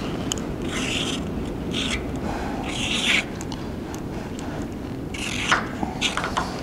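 Paint marker scratching across the rusty steel of a truck frame rail in about four short strokes as holes are marked, over a steady low shop rumble.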